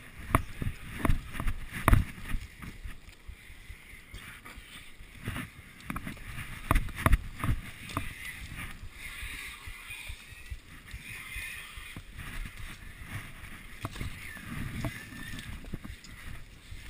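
Hurried footsteps with leaves and branches brushing and knocking against a body-worn camera as its wearer pushes through dense undergrowth: irregular thumps and rustling, the sharpest knocks in the first couple of seconds and again a little past halfway.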